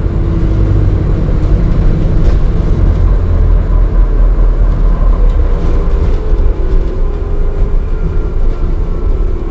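Alexander Dennis Enviro400 Hybrid MMC double-decker bus under way, heard inside the passenger saloon: a steady low rumble of road and drivetrain, with a faint whine that falls slowly in pitch in the second half.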